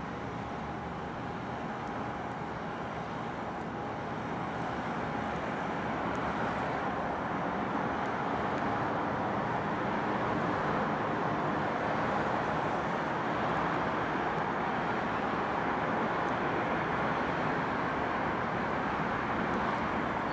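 Steady city traffic noise heard from above, a continuous roar of passing cars that swells a little a few seconds in and then holds.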